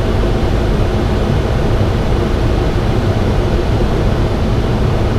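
Steady flight-deck noise of a Boeing 737 on approach: an even rush of airflow and engine noise with no distinct events.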